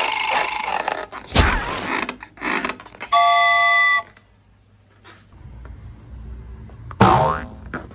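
A string of short edited sound effects. Noisy crackling with sharp clicks comes first, then a steady electronic beep lasting about a second around three seconds in, and a brief rising whoosh near the end.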